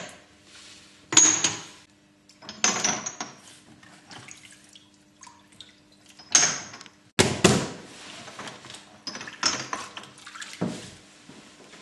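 Lengths of optical crystal glass clinking and splashing in a caustic soda bath as they are immersed for cleaning, in about six separate clattering bursts, over a low steady hum.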